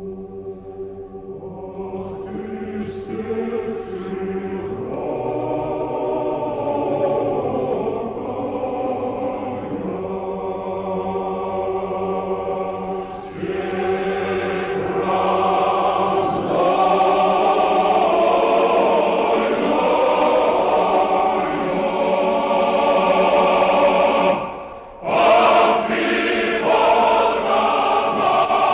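Background choir music: voices singing a slow, chant-like melody over a steady held low note. It drops out briefly near the end, then comes back.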